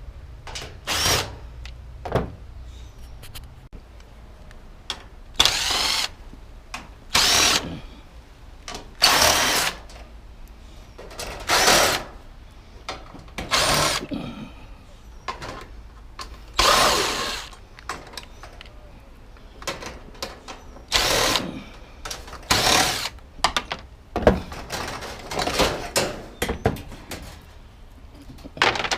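Handheld power drill run in over a dozen short bursts, each a second or less, its pitch curving up and down within each burst.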